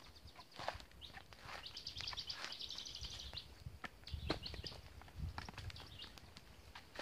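A bird chirping in a quick trill for about two seconds, over scattered knocks, clicks and low rustling.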